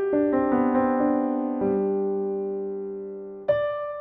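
Background music: a slow tune of struck notes, with a held chord fading away from about halfway and a new note coming in near the end.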